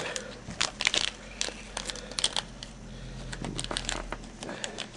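Plastic packaging crinkling and crackling in irregular small bursts as it is handled, likely the wrapping around a replacement mobile-phone LCD being opened.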